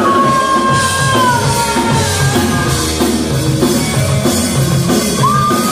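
Rock band playing: drums and electric guitar driving a steady beat, with long held high notes over it that slide down in the first two seconds, and a new held note starting near the end.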